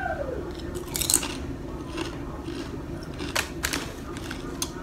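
Doritos Tangy Pickle tortilla chips bitten and chewed close to the microphone: a sharp crunch about a second in, then scattered crunches as the chewing goes on.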